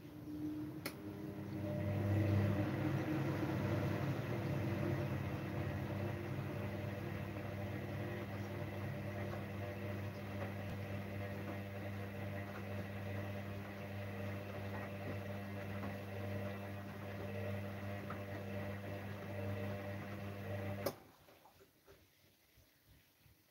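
Gorenje front-loading washing machine's drum motor turning an overloaded drum of dark laundry: a steady hum that builds over the first two seconds, runs for about twenty seconds, then cuts off suddenly with a click near the end.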